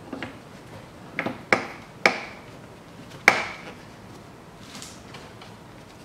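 Several separate sharp knocks and clicks of a hand tool and metal wiper arm against the windscreen wiper pivot as the wiper arms are fitted and tightened on. The loudest comes about three seconds in and rings briefly.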